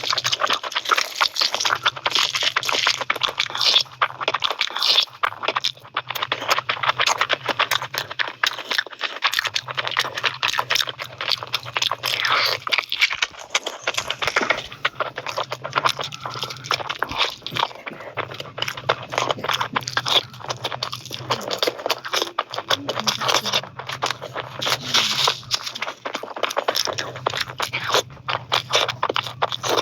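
Close-miked eating: continuous chewing, biting and crunching, with dense, irregular wet clicks and smacks. A low hum comes and goes underneath in stretches of a second or two.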